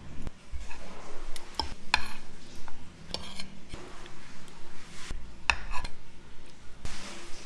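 A metal spoon and fork scraping and clinking against a plate while someone eats, with short clinks at irregular intervals.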